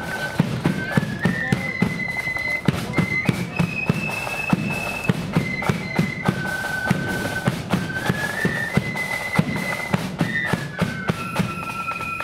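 Marching flute band playing a tune in unison, the flutes holding and stepping between high notes over a steady beat of drum strikes.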